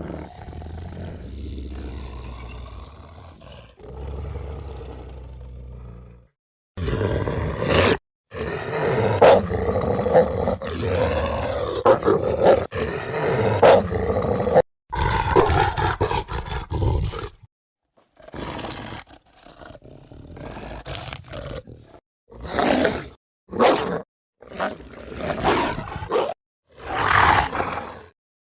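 Movie werewolf creature sound effects played back to back: a quieter low rumbling growl first, then a run of loud, long roars, then shorter roars and growls, each clip cut off by a brief silence.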